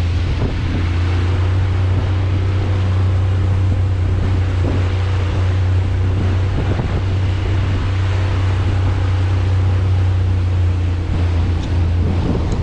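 Zodiac's outboard motor running steadily underway, a constant low hum, with wind buffeting the microphone and the rush of water.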